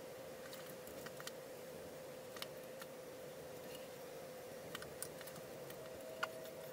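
Scattered sharp clicks and taps of hand tools working drywall compound, over a steady hum, with one louder tap about six seconds in.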